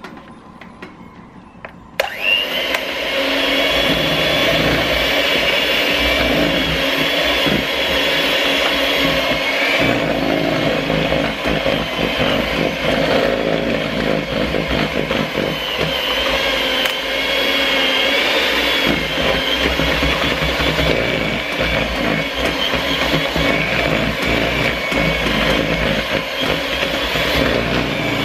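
Russell Hobbs electric hand mixer switching on about two seconds in and running steadily, its beaters whisking cake batter in a plastic bowl.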